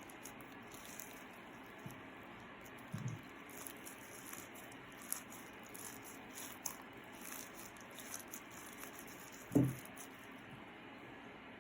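Slime being handled and mixed: faint squishing with scattered small clicks and ticks, and two soft thumps, the louder one near the end.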